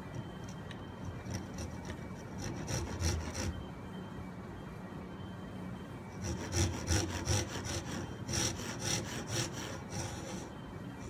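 Japanese pull saw cutting wood by hand with quick rasping strokes, about two or three a second. There is a short run of strokes about two seconds in, then a longer, louder run of about ten strokes from about six seconds in.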